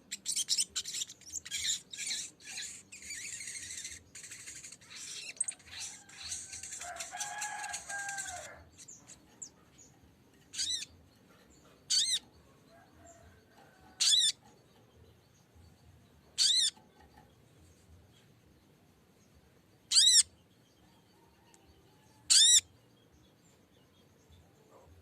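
Sogok ontong (sogon) bird calling: a rapid, dense chattering song for the first eight seconds or so, then six short, sharp, high calls a couple of seconds apart, a lure recording meant to provoke a rival bird into answering.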